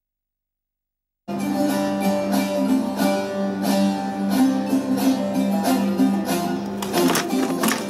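Sound cut out completely for just over a second, then a bağlama (long-necked Turkish saz) playing an instrumental folk passage. A quick plucked melody runs over a steady drone note, with a few hard strummed strokes near the end.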